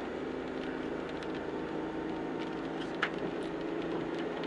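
Steady engine and road hum inside a moving car, with one short click about three seconds in.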